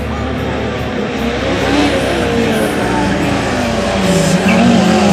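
Group A saloon race car engines revving hard as a pack of cars approaches. The engine notes rise and fall in pitch and grow louder, loudest near the end.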